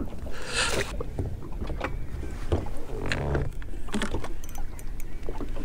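Fishing boat sitting on the water: a steady low rumble of wind and water against the hull, with scattered small knocks and a brief hiss about half a second in.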